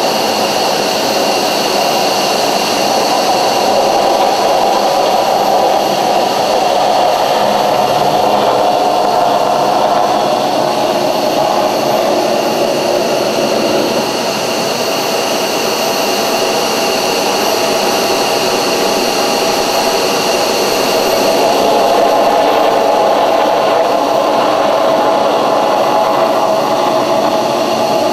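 F-22 Raptor jet engines (Pratt & Whitney F119 turbofans) running: a steady loud roar with a high turbine whine over it, dipping slightly about halfway through.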